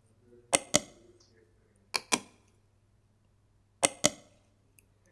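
Computer mouse double-clicked three times, each a quick pair of sharp clicks.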